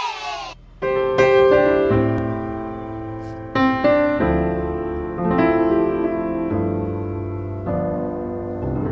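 Piano music: soft held chords and a slow melody, starting just under a second in and changing notes every second or so.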